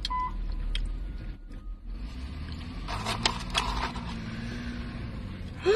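Low vehicle rumble with the last beep of a reversing alarm right at the start, then a few sharp clicks about three seconds in.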